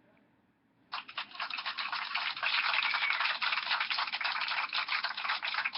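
Crinkling of thin plastic or foil packaging being torn and unwrapped by hand. It starts about a second in and keeps up as a dense, steady crackle.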